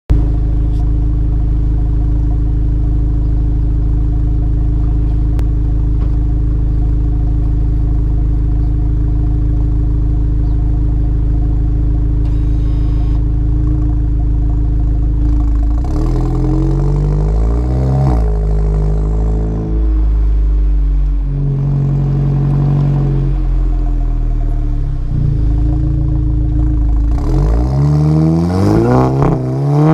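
Mk7 Volkswagen Golf GTI's turbocharged 2.0-litre four-cylinder running through a VWR Cup Edition aftermarket exhaust. It idles steadily for about fifteen seconds, then revs rise and fall in several throttle blips. Near the end the revs climb as the car accelerates away.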